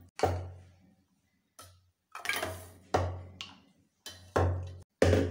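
A steel spoon knocking and scraping against the side of an aluminium pressure cooker as the cooked curry is stirred: a string of about eight sharp clinks, each fading quickly.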